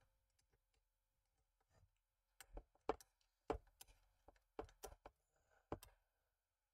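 Small precision screwdriver tightening a tiny screw into a scale model truck's chassis rail: about ten faint, irregular clicks and ticks, starting about two seconds in and stopping shortly before the end, with near silence between them.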